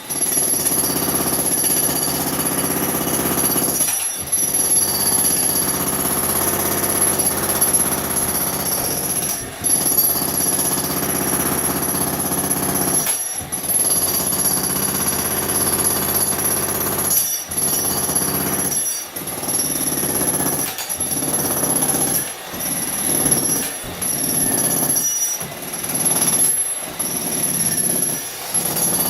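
Makita electric jackhammer hammering in long runs with brief pauses, then in shorter on-off bursts of a second or two from about two-thirds of the way in. A steady high whine runs under the hammering.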